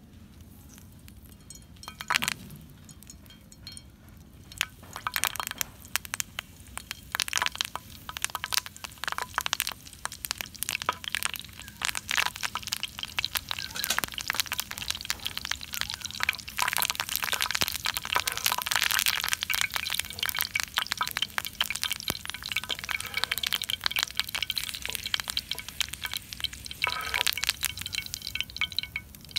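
Hot oil in a frying pan over a wood fire crackling and spitting as fresh green leaves fry in it. The pops start about five seconds in and grow dense, after a single sharp crack near the start.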